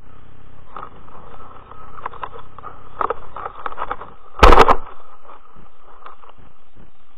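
Footsteps on gravel and camera rattle from a runner going downhill on a forest track, then one loud heavy thud about four and a half seconds in as the runner falls and hits the ground.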